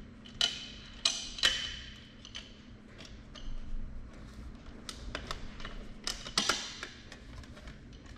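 A scattering of sharp clicks and light metallic clinks, like small hard parts knocking together, over a steady low hum. The loudest come in a cluster about half a second to a second and a half in, and again around six seconds in.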